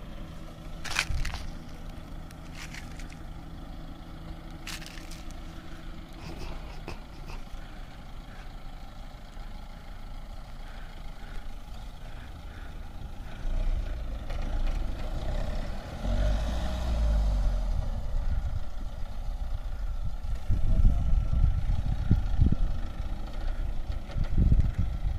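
Mahindra Thar 4x4 engine running at a steady idle, then working harder and louder about halfway through as the vehicle climbs onto a sand mound off-road, with heavy low surges near the end.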